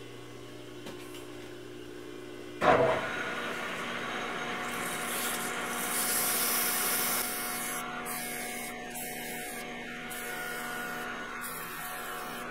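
Metal lathe switched on about two and a half seconds in with a sudden loud start, then its spindle running with a steady hum. A strip of sandpaper is held against the spinning steel bar, giving a dry rubbing hiss that is loudest a few seconds after the start.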